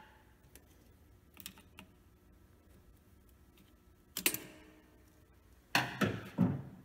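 Clicks and knocks of needle-nose pliers and hands working a rubber hose free in an engine bay: a faint tap about a second and a half in, a sharp cluster just after four seconds, and the loudest knocks near the end.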